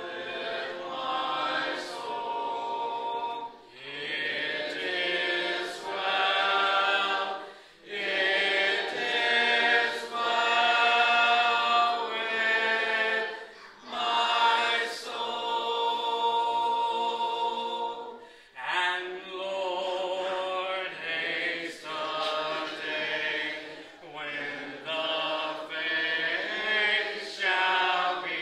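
Congregation singing a hymn a cappella: many voices together, with no instruments, in long held phrases broken by short pauses.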